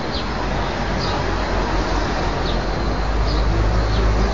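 Steady outdoor background noise with a low rumble, and a few short, high chirps scattered through it.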